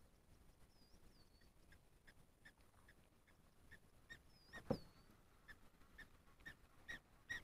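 Faint bird calls: a short note repeated about two to three times a second, with a few higher rising-and-falling whistles, and one soft knock a little past halfway.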